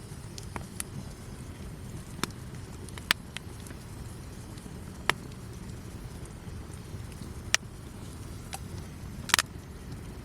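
Wood campfire burning with a steady low rush and sharp pops every second or two, the biggest crackle near the end.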